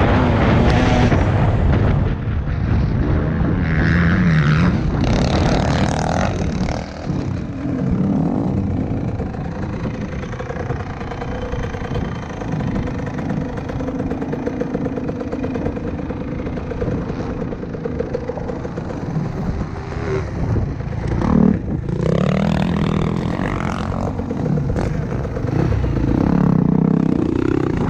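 2020 TM 300 EN two-stroke dirt bike engine under riding, its revs rising and falling through the corners, steadier and a little quieter through the middle, with heavy wind noise on the helmet microphone.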